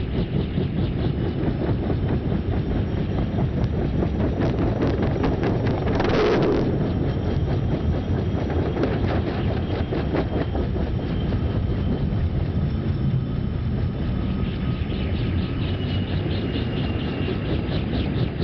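Small helicopter's engine and rotor running steadily. About six seconds in, a brief louder rushing noise swells and fades.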